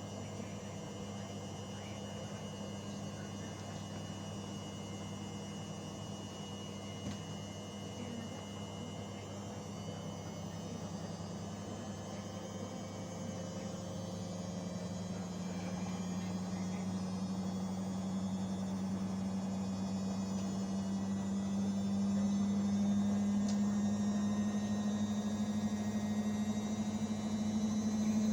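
Old Indesit washing machine's motor humming steadily, its pitch rising slowly and the sound growing louder as the drum speeds up.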